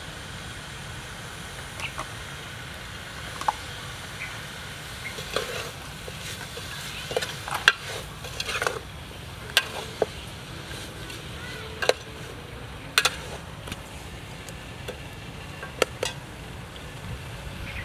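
Metal ladle stirring food in a stainless-steel pot, with irregular sharp clinks as it knocks against the pot's sides and rim. A steady low rumble runs underneath.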